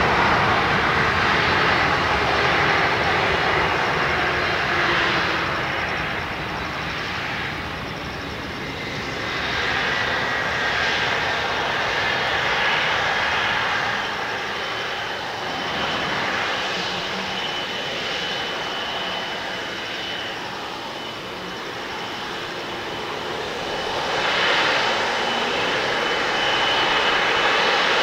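Boeing 777-200ER's twin turbofan engines running at low taxi power as the airliner rolls slowly after landing: a steady jet rush with a high whine, dipping twice in loudness and swelling up again near the end.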